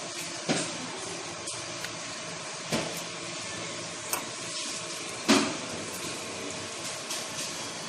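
Steady rushing kitchen noise with four sharp knocks a second or two apart, the loudest about five seconds in.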